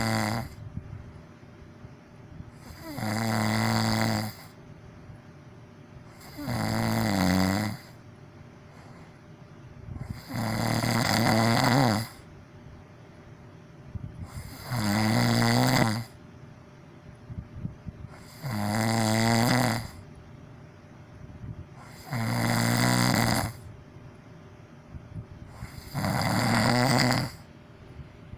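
A person snoring with steady, loud snores, one about every four seconds, each lasting one and a half to two seconds.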